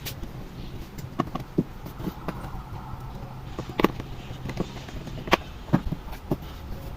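Scattered light clicks and taps of a screwdriver and the plastic bottom case as a laptop is screwed back together, over a steady low hum.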